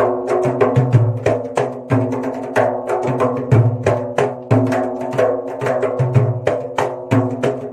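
Percussive background music with a steady beat of wood-block-like strikes over a repeating low bass pattern.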